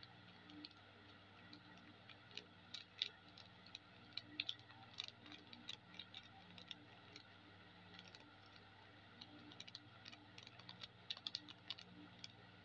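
Light, irregular clicks and crinkles of a plastic spice sachet being shaken and tapped over a steel bowl of noodles, in two spells, over a faint steady hum.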